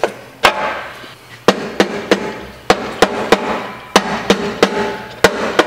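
A hammer tapping on the 700R4 transmission's oil pump body to seat it into the case: about a dozen sharp metal-on-metal strikes in uneven groups, each ringing briefly.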